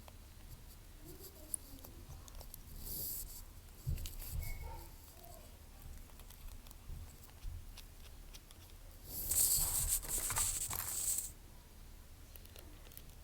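Small clicks of tools and parts being handled during an iPhone screen repair, with a short hissing, rustling burst about three seconds in and a louder one lasting about two seconds near the end.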